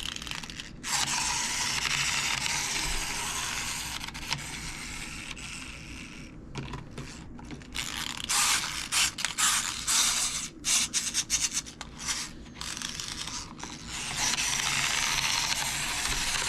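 Clockwork motor of a small plastic wind-up toy boat: a steady whir as the spring runs down, then a long run of ratchet clicks as it is wound up again, and the whir starts again near the end.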